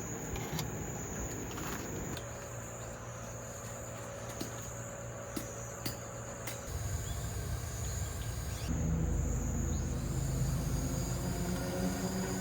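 Crickets or other summer insects chirring steadily in one continuous high-pitched tone, over a low rumble that gets louder about two thirds of the way through, with a few faint clicks.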